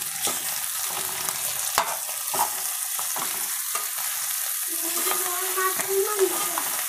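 Chopped capsicum and onion frying in oil in an aluminium pot, hissing steadily, while a steel spoon stirs the vegetables and clicks and scrapes against the pot's sides.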